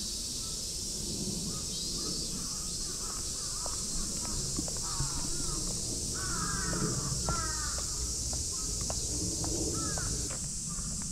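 Birds calling with a run of short, harsh calls, over a steady high hiss. Light footsteps on a wooden footbridge can be heard alongside.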